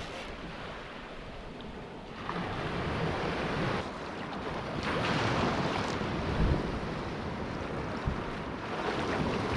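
Surf washing in, with wind buffeting the microphone; the wash swells about two seconds in and again around five seconds.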